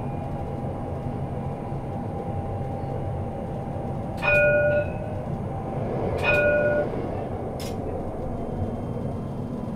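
Tram running along its track with a steady rumble and a faint motor whine, and a tram horn sounding two short blasts, one about four seconds in and one about two seconds later.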